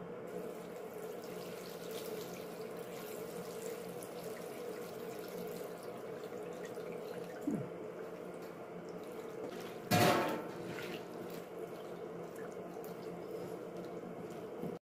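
Water sloshing and running as chopped cabbage is handled in a stainless steel bowl of cold water. A single sharp metallic clank with a short ring comes about ten seconds in.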